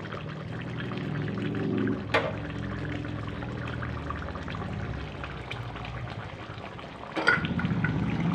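Chicken curry bubbling and spluttering as it boils in a metal pan, over a low steady hum. A single sharp knock comes about two seconds in, and the bubbling grows louder from about seven seconds.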